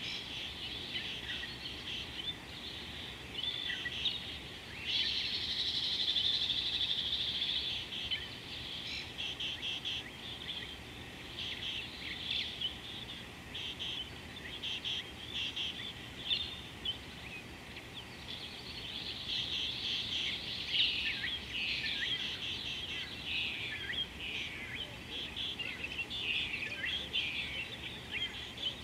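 A chorus of many wild birds chirping and trilling together, busiest around five to eight seconds in and again from about twenty seconds in, over a faint steady hiss.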